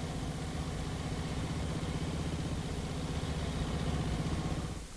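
Motorcycle engine running steadily at speed, with a rapid, even beat. It grows a little louder, then fades away just before the end.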